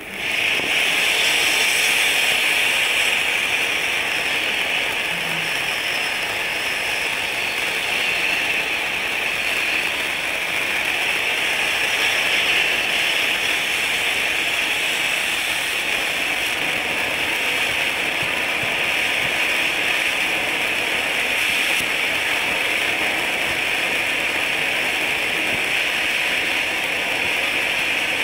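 Pyrotechnic ground fountain (Russian Fireworks 'Tamada' P4216) burning, its jet of gold sparks giving a steady hiss.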